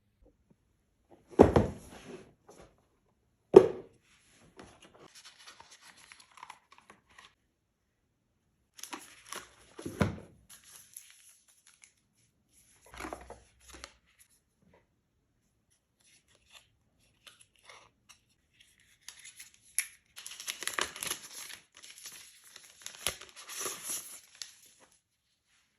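A smartphone box being opened and unpacked: a couple of sharp knocks as the box is handled, then intermittent tearing, rustling and crinkling of the packaging, busiest near the end.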